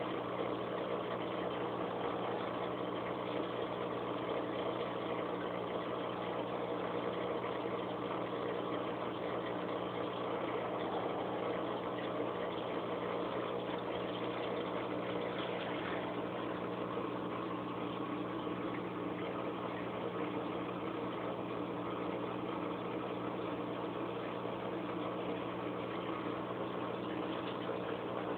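Aquarium pump humming steadily, with a low even drone and a constant hiss over it.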